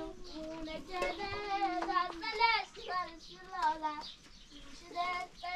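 A child singing a Persian song unaccompanied, in short sung phrases with brief pauses.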